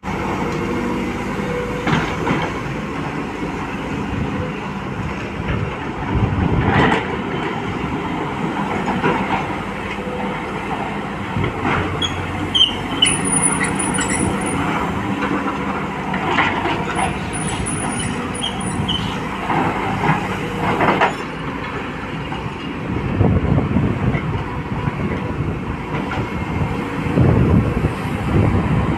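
Volvo excavator's diesel engine running under load while its bucket digs into and scrapes through an iron ore stockpile, with several sharp knocks and scrapes of ore and steel. Two spells of high metallic squealing come in the middle.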